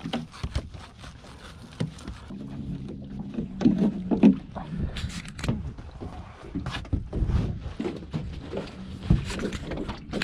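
Knocks and clatter of rope and gear being handled in a small fishing boat, the two loudest knocks around the middle, over a low steady motor hum.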